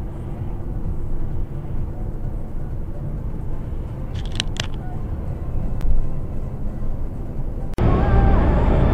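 Car driving noise picked up by a dashcam inside the cabin: a steady tyre and engine rumble, with a brief high clink about four and a half seconds in. Near the end it cuts off abruptly and comes back louder.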